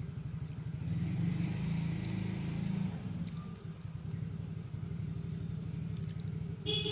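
A low, steady engine drone that swells for a couple of seconds about a second in, with faint insect chirping high above it and a brief high-pitched sound near the end.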